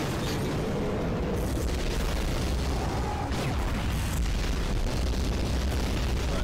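Battle sound effects from an animated action scene: explosions and weapon blasts over a steady, heavy low rumble, with several sharp blasts in quick succession.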